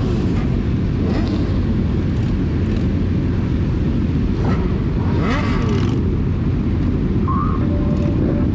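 A large pack of motorcycles, many of them sport bikes, idling together in a dense, steady low rumble, with a rider blipping the throttle about five seconds in.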